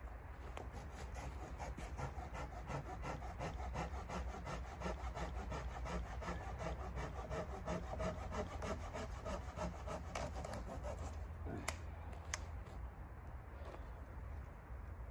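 Folding pruning saw cutting through a dead pine branch in rapid, even rasping strokes for about eleven seconds. The sawing stops and two sharp cracks follow, then light rustling of branches.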